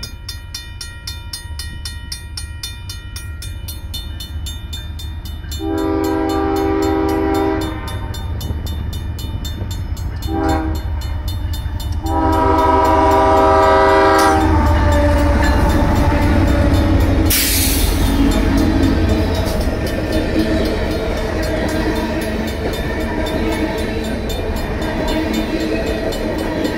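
Railroad crossing's mechanical bell ringing rapidly as a Union Pacific freight approaches. The diesel locomotive's air horn sounds three times, a long blast, a short one and another long one, starting about six seconds in. Then the locomotives pass with a deep steady rumble and the freight cars roll by.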